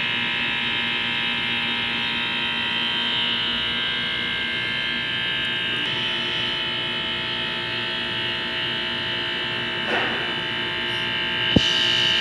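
Window air conditioner running during R22 gas charging: a steady electric hum from its compressor and fan, its tone shifting slightly about halfway through. A single sharp click near the end.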